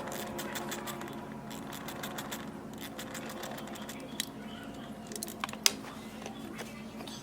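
Ratchet wrench clicking in quick runs as a bolt is loosened, with a faint steady hum underneath.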